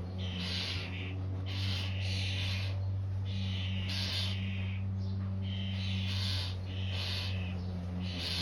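Starling nestlings calling: harsh, hissing calls in repeated bursts about once a second, over a steady low hum.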